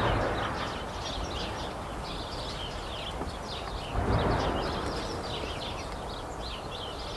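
Birds singing continuously in quick chirping phrases. Twice, at the start and about four seconds in, a louder rush of noise swells up and fades over about a second.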